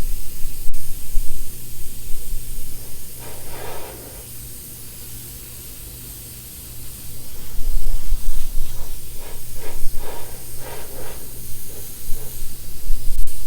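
Airbrush spraying paint: a hiss of air that swells and fades in short passes as the trigger is worked, with a quieter pause in the middle and a steady low hum underneath.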